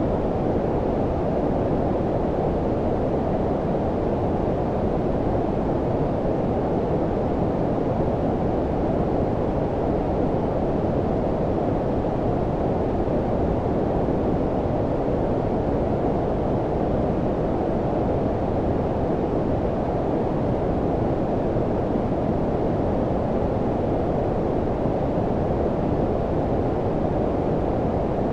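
Steady low-pitched synthetic noise, brown-noise style, with the hiss cut off above about a thousand hertz so it sounds deep and muffled. It holds an even level with no changes.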